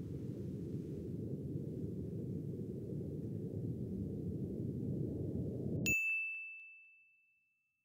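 A steady low rumble of background noise, cut off about six seconds in by a single bright bell ding that rings on one high tone and fades away over about a second and a half, a logo sting.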